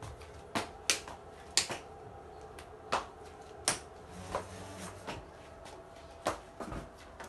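A series of sharp, irregularly spaced clicks and taps, about a dozen, over a low steady room background.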